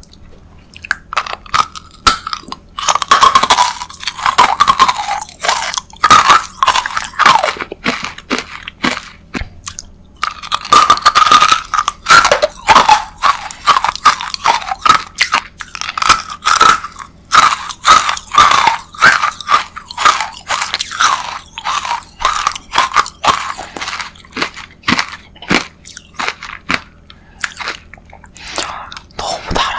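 Pink rock candy (crystallised sugar on a stick) bitten and crunched close to the microphone: a long run of loud, sharp crunches that starts a couple of seconds in, with a short lull about ten seconds in.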